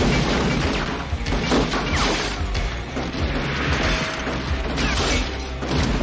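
Action-film gunfight soundtrack: dramatic score music under pistol shots, heavy booms and crashing, smashing debris.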